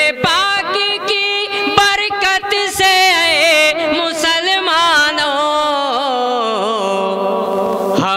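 A man's voice singing a naat in long, drawn-out melodic phrases without clear words, the notes wavering and ornamented, with a long held line that slowly falls in pitch in the middle.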